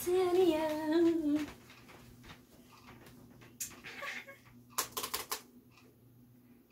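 A girl's voice holds one wavering, hummed or sung note for about a second and a half, then a short laugh and scattered sharp clicks of laptop keys, with a quick cluster of clicks about five seconds in.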